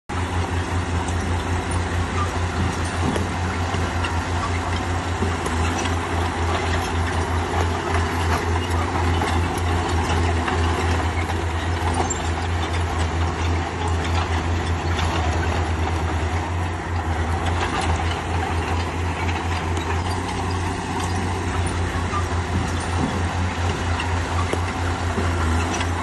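Bulldozer's diesel engine running steadily with a rapid low throb, with occasional short clanks over it.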